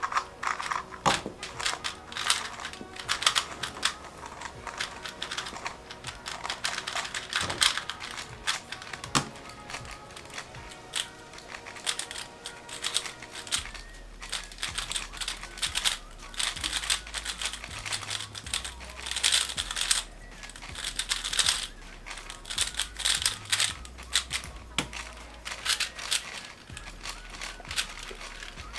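Fast, irregular plastic clicking and clattering of speed cubes being turned rapidly during a solve, over background music.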